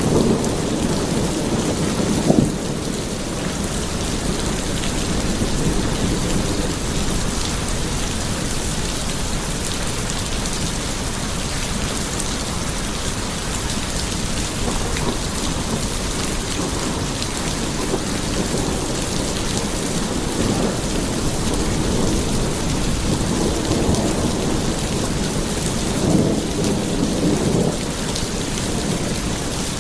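Steady rain pouring, with low rumbles of thunder swelling up near the start and again in the second half.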